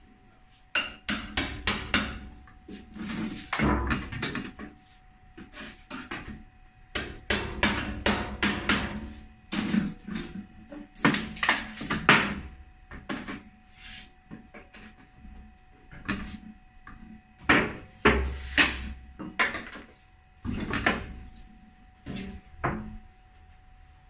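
A metal tool scraping and knocking against a refrigerator's sheet-metal back panel as the panel is pried and peeled away from the foam insulation. The sound comes in quick runs of sharp clicks and scrapes, separated by short pauses.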